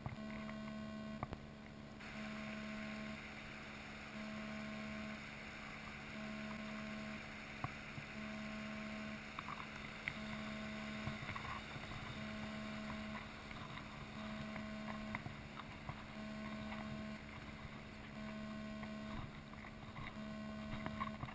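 Shallow rocky stream rushing over stones, starting about two seconds in, with a low hum that pulses on and off about once every two seconds and a few small clicks.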